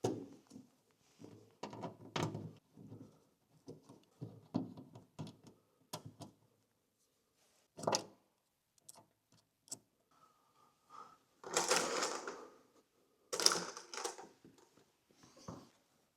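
Hand work on a Jeep's steel bulkhead: scattered small clicks and knocks of screws and tools being handled. Two louder scraping rustles come about twelve and thirteen and a half seconds in.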